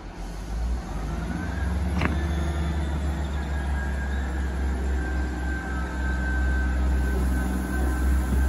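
Class 158 diesel multiple unit's engines powering up as it pulls away: a low rumble that builds about half a second in, with a whine that rises and then holds steady. There is a short sharp click about two seconds in.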